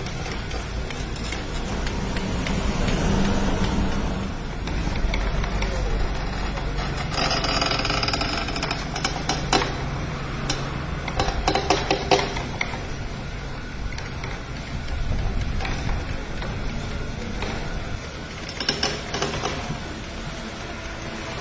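Stone oil press (kal chekku) running, its rotating pestle grinding groundnuts in the stone mortar: a steady low rumble.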